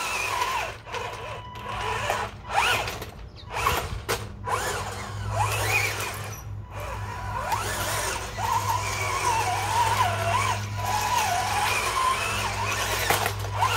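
BWINE Q111 1:12-scale RC tank's electric drive motors whining as it drives over grass and dirt, the pitch rising and falling with the throttle, over a steady low hum.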